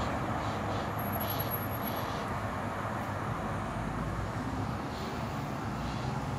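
Steady town ambience of distant road traffic, an even hum with no single event standing out.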